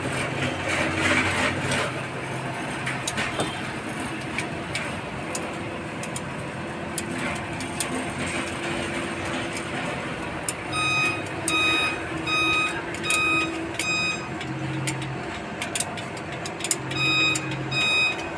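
Metal hand tools clicking and scraping on a diesel engine's rocker arms and valve adjusting screws. From about ten seconds in, a run of evenly spaced electronic beeps, a bit under two a second, stops for a few seconds and then starts again near the end.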